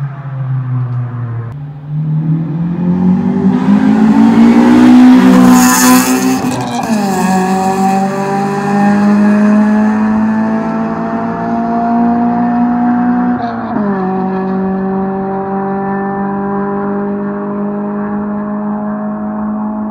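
Honda Civic Si with a B16A2 1.6-litre DOHC VTEC four-cylinder and an aftermarket cat-back exhaust, accelerating hard away down the road. The engine note climbs to its loudest about five to six seconds in, then drops at an upshift about seven seconds in. It climbs again, drops at a second upshift near fourteen seconds, and fades as the car draws away.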